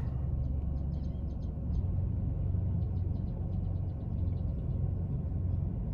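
Steady low hum of an idling car, heard from inside the cabin, with faint quick high ticks throughout.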